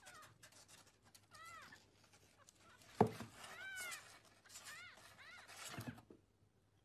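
Kitten mewing faintly several times, each short mew rising and falling in pitch, with a single sharp knock about three seconds in.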